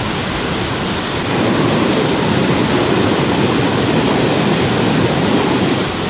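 Steady, loud rush of flowing water, growing a little louder about a second in.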